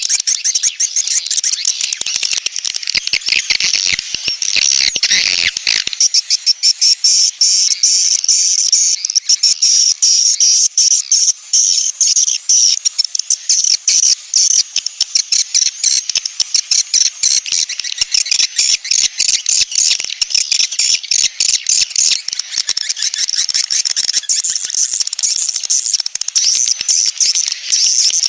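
Swiftlet lure call of the 'sedot anakan' type, meant to draw young swiftlets into a bird house: dense, rapid, high-pitched chittering and clicking that runs without a break. The first few seconds also carry a fuller, lower sound beneath the chitter.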